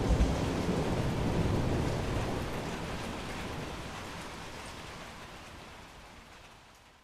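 Thunderstorm: rain falling, with a low rumble of thunder at the start, and the whole sound fading steadily away to almost nothing by the end.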